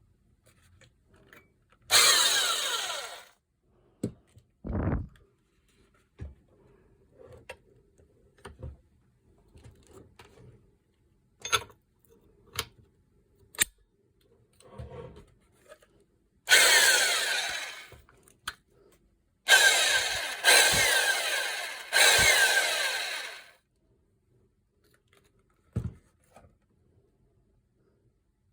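Makita HM0810 electric demolition hammer's motor triggered in five short bursts, each whirring up and then winding down in falling pitch as the trigger is released, with small clicks of handling in between. The hammer came as a junk unit that will not strike.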